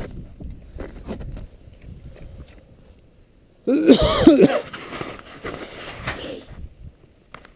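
A person coughs about four seconds in: one harsh, voiced cough lasting about a second, the loudest sound here, over low rustling.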